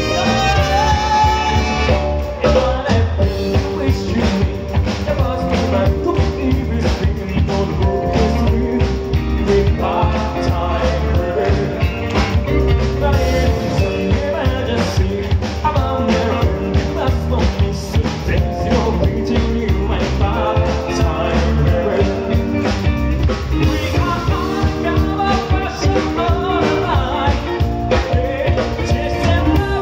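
Live band playing an upbeat pop-rock song with a steady drum beat: a male lead singer over drums, electric bass, keyboard and tenor saxophone.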